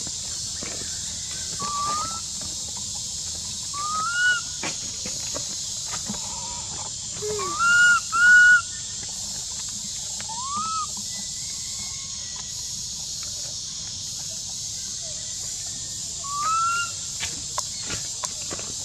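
Infant long-tailed macaque giving short, whistle-like rising coo calls, about six in all, the loudest two back to back about eight seconds in, over a steady high drone of insects.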